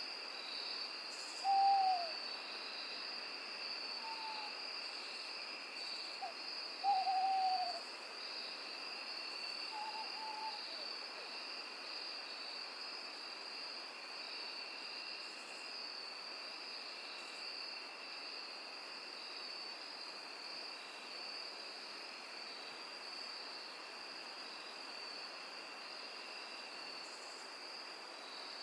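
An owl hooting a few times, the loudest calls about two and seven seconds in, each a short hoot falling in pitch, over a steady high-pitched chorus of night insects that carries on after the hooting stops.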